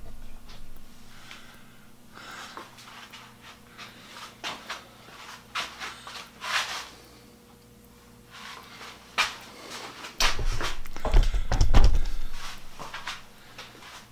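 Handling noises at a workbench as wooden saw handles in a stand are touched and moved: scattered clicks and short rubbing scrapes, then a heavier bump and rumble about ten seconds in.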